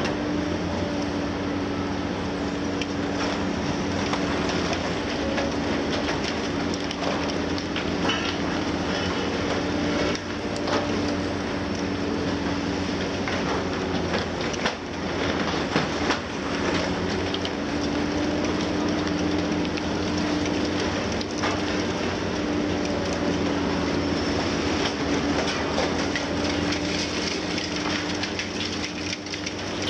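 Liebherr 954 long-front demolition excavator's six-cylinder diesel and hydraulics running steadily with a constant hum. Repeated crunching and clattering comes from concrete breaking and debris falling as the wall is torn down.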